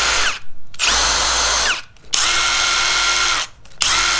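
Two cordless brushless impact drivers spinning 1-inch spade bits freely with no load, giving a steady high motor whine. The triggers are released and pulled again several times, and each stop brings a falling whine as the motors spin down.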